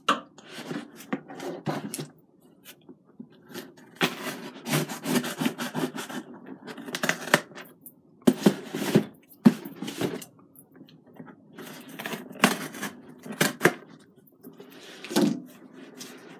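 A mailed package being opened by hand: cardboard and packing scraping and rustling in uneven stretches, with irregular sharp clicks and knocks.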